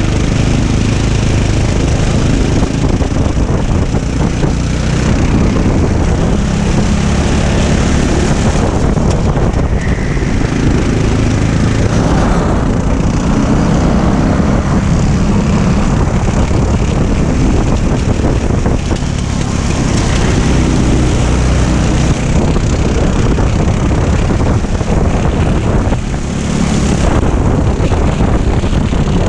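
Racing kart engine heard from on board at speed, its pitch rising and falling as the throttle opens and closes through the corners, with wind on the microphone.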